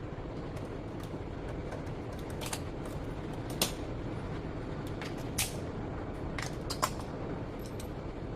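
A few short, sharp clicks and clinks, loudest about three and a half, five and a half and seven seconds in, over a steady background hiss: small tool and metal-part handling during hand disassembly or assembly of a rotary hammer.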